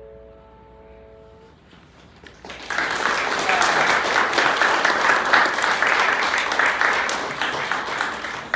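A grand piano's last chord rings and dies away, and about two and a half seconds in the audience starts applauding.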